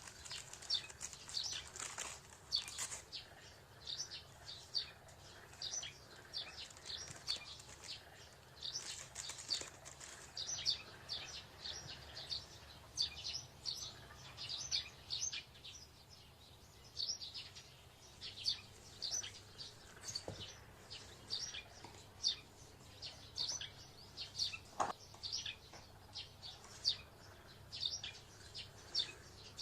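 Small birds chirping: many short, high chirps in quick irregular runs, over a faint steady low hum.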